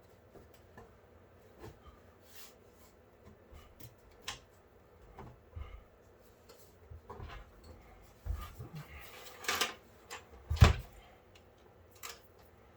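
Scattered light clicks and knocks of computer hardware being handled, with a run of louder knocks from about eight seconds in; the loudest is a sharp thump a little past ten seconds.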